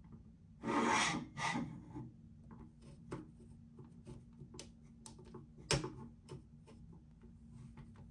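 Hands handling a toy and its packaging: two short rubbing, scraping sounds, then scattered small clicks and taps, with one sharper click a little before the six-second mark.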